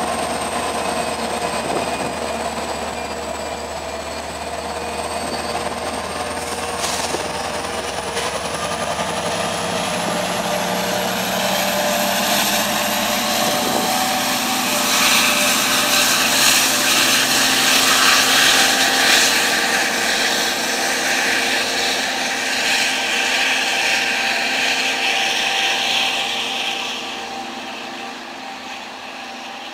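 Diesel-electric locomotive of a Long Island Rail Road DE30AC type pushing a departing train: the engine throttles up under load and its note rises slowly in pitch. It grows loudest in the second half, then drops off a few seconds before the end as the train draws away.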